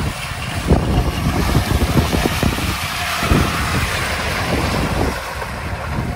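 Audi A6 2.8 Quattro wagon driving through deep mud, its V6 petrol engine working under load while the tyres spin and churn wet mud and water. Wind buffets the microphone.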